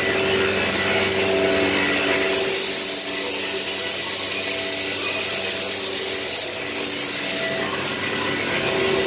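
CNC router cutting wooden cabinet panels: a steady machine whine with several held tones, and a louder hiss of the bit cutting through the board from about two seconds in until near the end.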